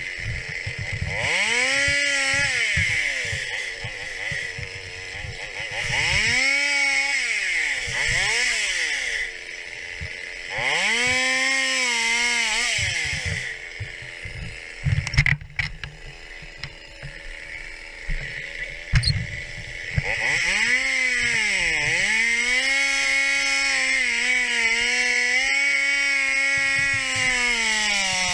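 Stihl 021 two-stroke chainsaw revved up and cutting logs in several bursts, its pitch falling back toward idle between cuts. A quieter stretch in the middle holds a few sharp knocks, then a long steady cut starts about twenty seconds in.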